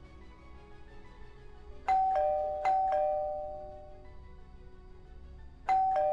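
Two-tone doorbell chime ringing ding-dong three times: twice in quick succession about two seconds in, then once more near the end, each higher note dropping to a lower one and fading out.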